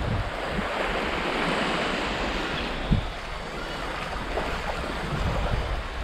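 Small waves washing onto a sandy shore, with wind buffeting the microphone; a single short knock about three seconds in.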